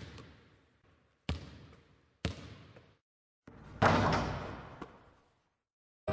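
Intro sound effects: three echoing impacts about a second apart, then a short rising swell into a louder hit that rings out as the logo appears.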